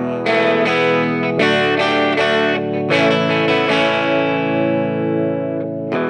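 Background music: electric guitar chords played through effects, struck a few times and left ringing.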